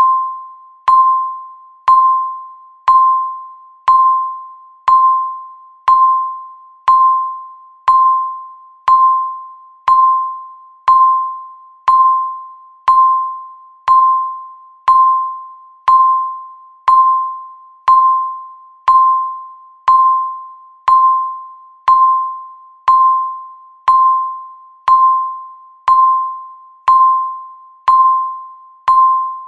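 Countdown timer beep: one clear electronic ding struck once a second, each fading away before the next, ticking off the seconds.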